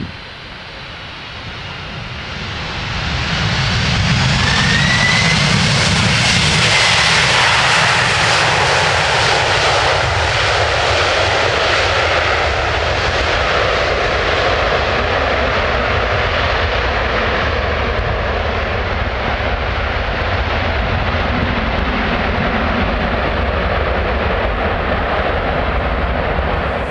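Boeing 767 airliner just after touchdown, its jet engines spooling up into reverse thrust: a loud jet rumble with a faint whine sliding slightly up in pitch builds over the first few seconds, then holds nearly steady as the aircraft rolls out.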